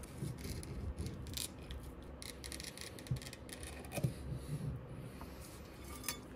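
Metal scraper prying resin 3D-printed parts off a build plate: faint scraping with scattered sharp clicks as the parts come free, the loudest about three and four seconds in.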